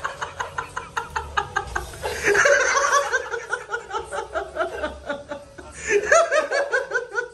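A young boy laughing and giggling in quick high-pitched pulses, several a second, in three bouts with short breaks about two seconds and five and a half seconds in.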